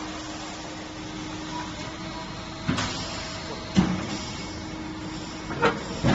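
High-frequency embossing machine humming steadily, its pitch stepping up for a second or two mid-way and back down, with four sharp metallic knocks from handling of its sliding mould tray.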